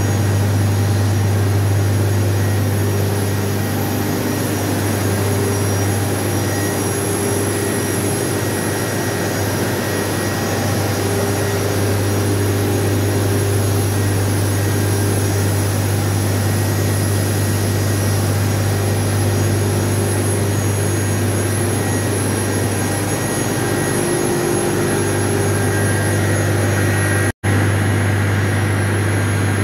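Steam turbine-generator set running at speed: a loud, steady machine drone with a strong low hum and a thin high whine above it. The sound cuts out for a split second near the end.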